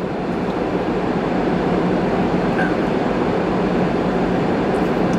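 A running car's climate fan and engine heard from inside the cabin: a steady, loud rushing noise with a low hum underneath.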